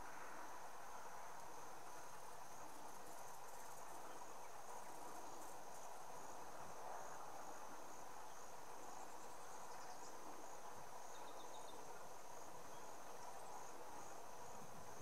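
Steady, high-pitched insect trill, an unbroken chorus of calling insects, over soft background hiss.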